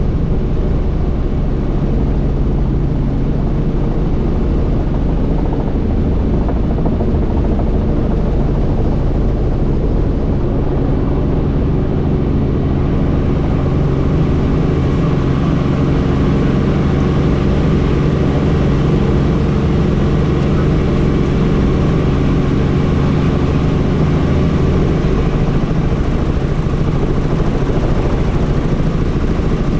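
Helicopter engine and rotor running steadily: a loud, continuous drone made of several steady low tones under a hiss, which grows a little brighter about halfway through.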